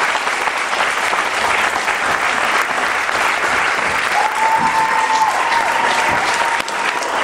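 Audience applauding steadily, with a long high steady tone held over the clapping from about four seconds in.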